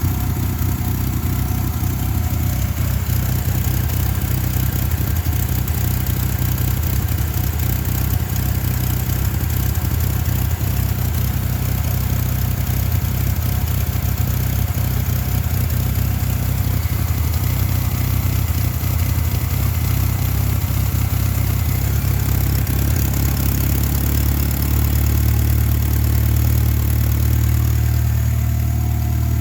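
Ford 2.5-litre Lima inline-four engine idling roughly, the fault being troubleshot. It runs steadily, with its low hum growing a little stronger near the end.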